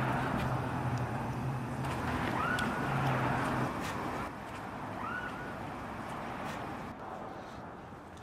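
Outdoor alley ambience: a steady low hum and rushing noise like distant traffic, with two short high chirps about two and a half seconds apart.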